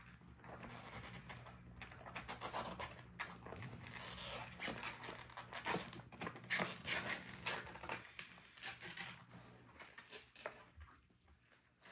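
Dogs panting among a litter of two-week-old puppies, with irregular scratching and shuffling; it quietens near the end.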